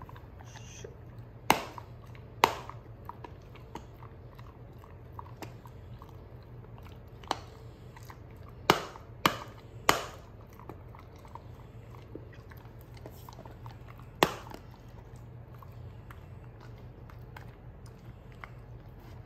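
A wolfdog biting and crunching hard, dry stick-shaped dog treats. Six sharp cracks: two close together early, three in quick succession about halfway, and one more a few seconds later, with softer chewing between.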